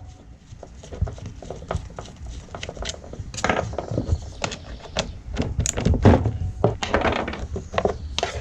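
Irregular clicks and knocks of a socket wrench and metal parts being handled as the bar nuts are undone to take the bar off a chainsaw. The knocks come more often from about three seconds in.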